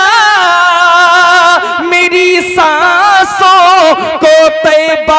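A man singing a naat solo into a microphone, drawing out long, wavering held notes in melismatic phrases, with brief breaks between phrases about one and a half and four seconds in.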